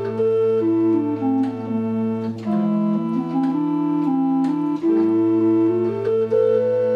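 Combination pipe organ playing sustained chords, with a melody stepping up and down over a long held bass note. The bass moves to another note about two and a half seconds in and returns a couple of seconds later.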